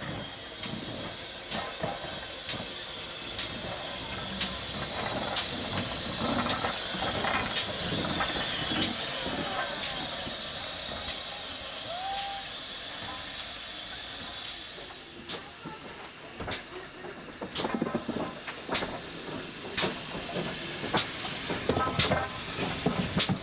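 GWR 57XX-class pannier tank steam locomotive running slowly past with a steady hiss of steam. Sharp clicks come about once a second, growing more frequent and uneven in the last third.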